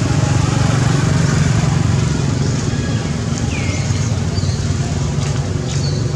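A motor engine running steadily nearby, a low, even hum with no change in pitch. A few brief, faint high chirps sound over it.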